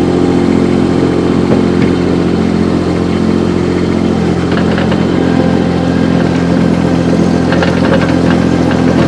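Diesel engine of a Baumalight TRL 630D mini track loader idling steadily, a quiet-running engine for its size.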